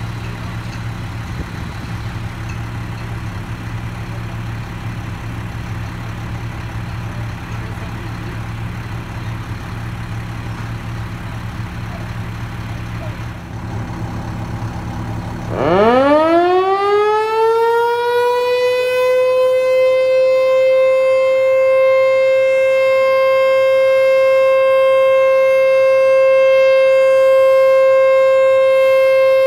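A low steady hum for about fifteen seconds. Then an American Signal T-121 electromechanical rotating outdoor warning siren winds up, its pitch climbing quickly and settling into one loud, steady tone: the alert signal of a monthly siren test.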